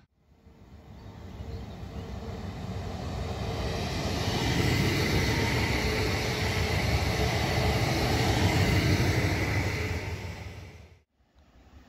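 Newag Impuls 31WE electric multiple unit passing on the line, wheels running on the rails with a faint steady whine over the rumble. The sound swells as it approaches, stays loud while it passes, then cuts off about eleven seconds in.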